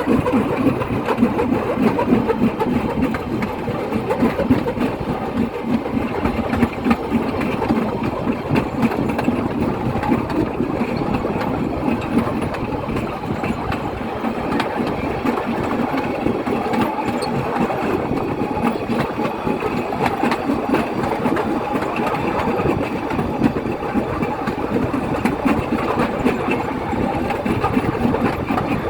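An engine running steadily and continuously, with no change in speed.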